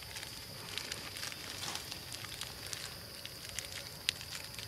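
Light crackling and rustling of leaves and grass as monkeys move and groom in the undergrowth: scattered small ticks and snaps, one sharper snap about four seconds in, over a steady faint high-pitched tone.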